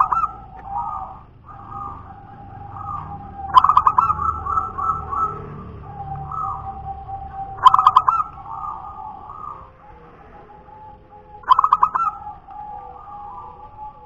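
Zebra dove (perkutut) cooing in repeated phrases about every four seconds. Each phrase opens with a loud, quick run of notes and trails off into softer, drawn-out coos.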